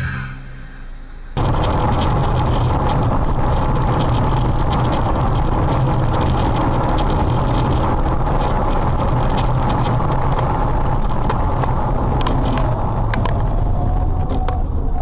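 Steady engine and road noise of a car at highway speed, picked up inside the cabin by a dashboard camera, with a thin steady whine and scattered clicks. It starts abruptly about a second and a half in, after a short quieter stretch.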